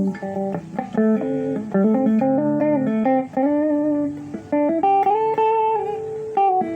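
Gold top Les Paul electric guitar played through a Deviser TG-15 15-watt practice amp on its clean setting with no effects: a run of single-note phrases and a few short chords, with several notes bent up in pitch and held.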